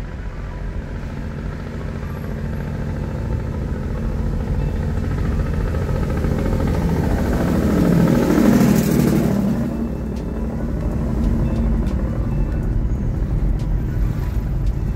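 Car road and engine noise heard from inside the cabin while driving uphill, swelling as a heavy dump truck passes close by in the opposite direction, loudest about eight to nine seconds in, then settling back.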